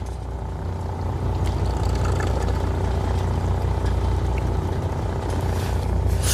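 A fishing boat's engine running steadily: a low, even drone with a constant hum.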